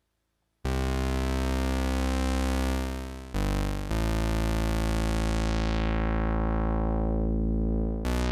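IK Multimedia Uno Synth, a monophonic analog synthesizer, playing low, buzzy bass notes one at a time: a held note about half a second in, a short one, then a long one whose bright upper tone slowly fades into a darker sound. Fresh notes start near the end.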